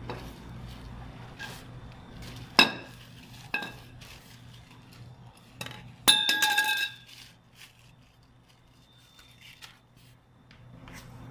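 Steel trampoline frame parts clinking against each other during assembly: three sharp metallic clicks, then a brief rattle of ringing clinks a little past halfway, the loudest part.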